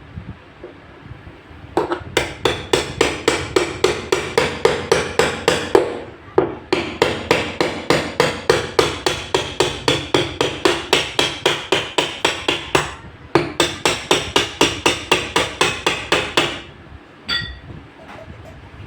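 A hammer striking rapidly and repeatedly, about four to five blows a second, in three runs with brief pauses between.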